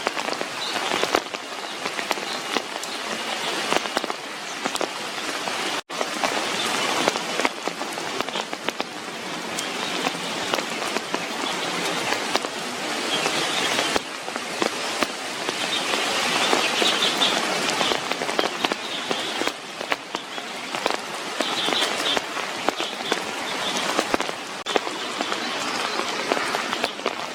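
Heavy rain falling steadily, a dense patter of drops on leaves and surfaces, with a few faint high bird chirps now and then. The sound drops out for an instant about six seconds in.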